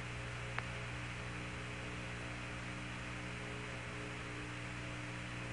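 Steady electrical hum with hiss on the sound track of archival Apollo lunar-surface footage, with one faint click about half a second in. No knock is heard as the astronaut sets the antenna on the rover: the sound is taken to stay below the threshold of the voice-activated (VOX) suit microphone, so the downlink stays quiet.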